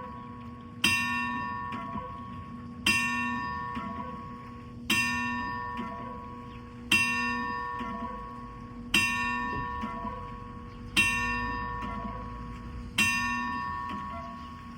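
Large bell of the world's largest cuckoo clock striking the time: seven even strokes about two seconds apart, each ringing out and fading before the next.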